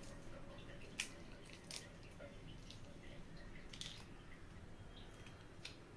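Faint, scattered clicks and soft squishes of raw prawns being cleaned, heads and shells pulled away, with the sharpest click about a second in.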